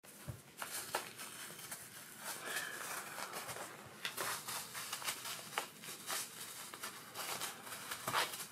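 Kitten wrestling with a small cloth beanbag on tatami: an irregular run of rustling, scuffing and small clicks from the bag, paws and claws.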